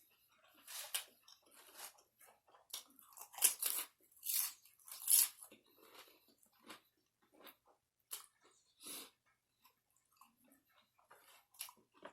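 A person chewing and biting into crunchy food, with irregular crisp crunches, loudest near the middle.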